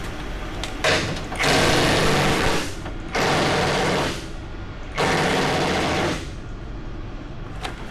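DeWalt power wrench running in three bursts of a second or so each, spinning out the 21 mm front bumper bolts.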